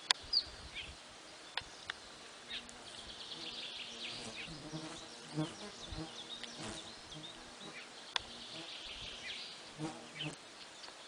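A flying insect buzzing, a low hum that comes and goes from about two seconds in, over short high bird chirps and a few light ticks.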